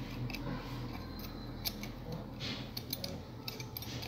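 Homemade speargun reel's plastic spool being turned by hand on its bolt, giving irregular light clicks and ticks with a short rubbing swish about two and a half seconds in, over a steady low hum.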